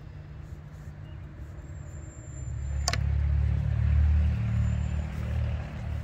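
Low engine rumble of a passing motor vehicle, swelling from about two seconds in, loudest near the middle, then fading away. A single sharp click comes about three seconds in.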